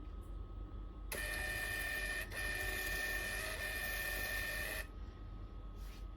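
NIIMBOT B18 label printer printing a label: a steady motor whine that starts about a second in, dips briefly, and stops abruptly near the five-second mark, over a faint steady hum.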